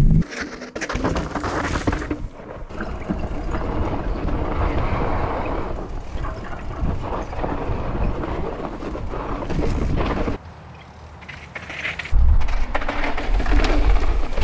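Mountain bike rolling over rock and a dirt trail: tyres crunching on the ground, with scattered knocks and rattles from the bike. It goes quieter for a second or two about ten seconds in, then a louder low rumble starts near the end.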